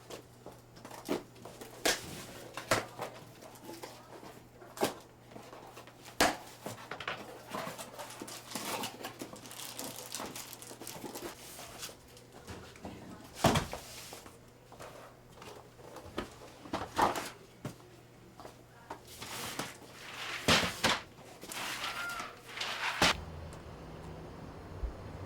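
Irregular knocks, clunks and rustles of goods and boxes being handled and set down during a grocery delivery, over a steady low electrical hum. The hum and background change abruptly about 23 seconds in.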